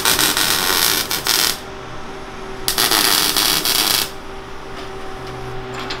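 Welding arc crackling and hissing in two bursts of about a second and a half each, a short pause between them, with a steady hum underneath.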